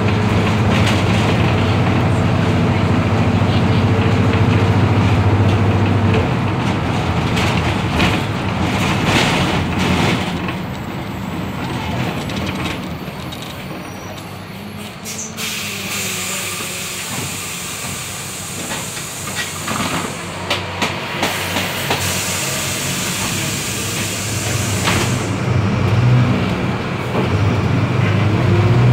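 Diesel engine of a Mercedes-Benz OF-1721L BlueTec 5 bus running, with a steady hum for the first several seconds, then dropping in level. About halfway through, a long hiss of compressed air from the bus's air system lasts several seconds, with a few knocks. Near the end the engine comes up again.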